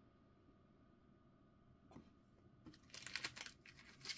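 Near silence, then from about three seconds in a short run of light crinkly clicks and rustles as plastic card sleeves and packs are handled on a table.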